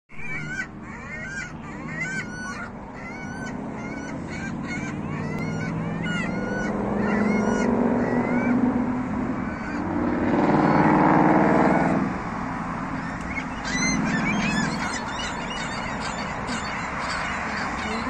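Gulls calling over and over in short, sharp, bending cries, about two a second, with a steady hum of road traffic underneath. A bus passes close, the loudest sound, about ten to twelve seconds in, while the gull calls drop out for a few seconds before starting up again.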